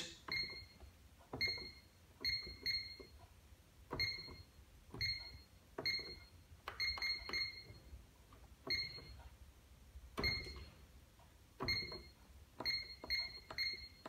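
Pyronix Enforcer alarm keypad beeping as its keys are pressed: a short high beep with a soft click at each press, about sixteen in all, some single and some in quick runs of two to four, as characters are entered letter by letter.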